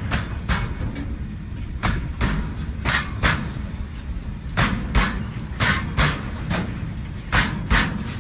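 Railking model BOXN wagons and brake van rolling along model railway track: a steady low rumble with sharp clicks, many coming in pairs a fraction of a second apart, as the wheels cross rail joints.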